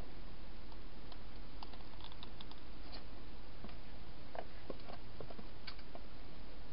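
Faint, irregular clicks and crackles of a wild hedgehog moving about in dry grass and leaves, over a steady hiss. The clicks come in two scattered bunches, one early and one past the middle.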